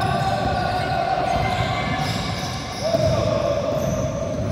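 A basketball being dribbled on a hardwood court, with players' shoes and voices echoing in a large sports hall. A steady tone runs in the background and steps to a slightly lower pitch about three seconds in.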